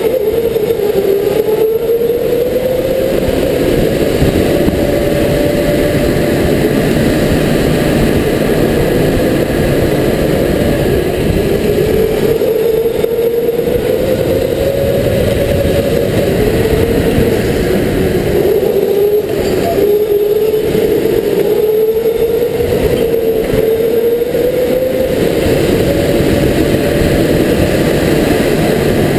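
Electric indoor go-kart running at racing speed, heard from a helmet-mounted camera: a steady motor whine that rises and falls slowly in pitch as the kart speeds up and slows for the corners, over a constant loud rushing noise.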